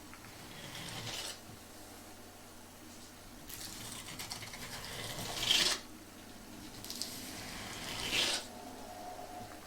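Three scratchy rubbing strokes against a surface, each growing louder and then breaking off sharply; the second, longest stroke is the loudest.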